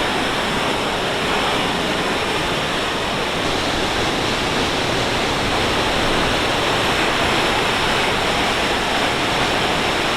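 Waterfall in Maligne Canyon: glacier-fed water rushing and falling, a loud, steady roar.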